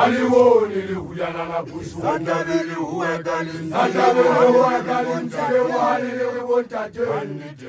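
Male voices of Basotho initiation graduates (makoloane) chanting in long, drawn-out phrases, with two short breaks.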